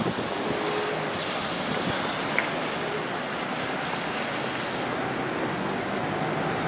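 Steady road traffic noise, mostly tyre hiss, as a BYD/Alexander Dennis Enviro400EV electric double-decker bus drives round a mini-roundabout, with wind on the microphone. A faint steady tone comes in the first second or so.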